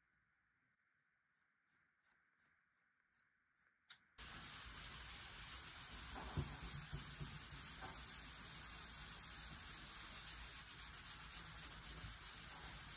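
A hand-held pad rubbing quickly back and forth over a stained wooden cabinet panel: a steady scrubbing hiss that starts suddenly about four seconds in, after a few faint ticks.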